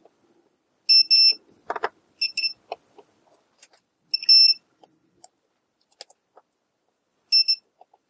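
Digital multimeter's continuity beeper giving about six short high beeps, in pairs and singly, as the probes touch a BNC connector and its solderless feedthrough lug; each beep signals an unbroken connection. Faint clicks come in between the beeps.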